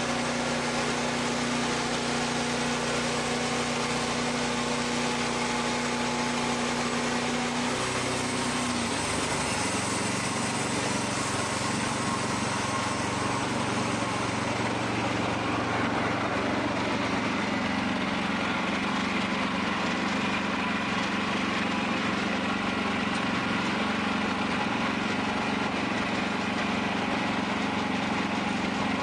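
Wood-Mizer portable band sawmill running, its engine note steady and then dropping lower about eight seconds in.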